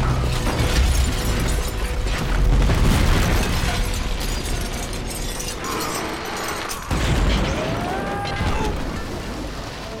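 Film sound effects of a heavy safe smashing through masonry walls: a low rumble with crashing stone and scattering debris, and a sudden crash about seven seconds in.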